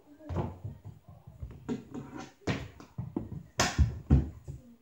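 Hockey stick and ball knocking on the floor during stickhandling practice: a quick, uneven run of knocks and thumps, loudest near the end.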